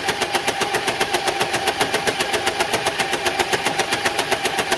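A Nerf Vulcan blaster's motorized mechanism cycling in a fast, even clatter. It is switched on through a timer relay set to run for about six seconds.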